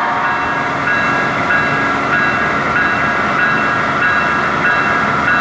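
HO scale Athearn Genesis SD70M-2 model diesel locomotive running on the layout: a steady train-like drone with several held whining tones.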